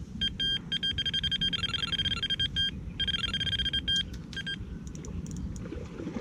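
Electronic fishing bite alarm beeping at a high pitch. A few spaced beeps turn into fast runs of beeps, with a short pause between them, then stop after about four and a half seconds: line is being pulled off the rod as a fish takes the bait.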